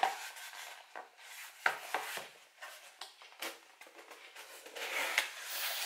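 Small cardboard box being opened and handled by hand: cardboard rubbing, scraping and rustling, with scattered light clicks.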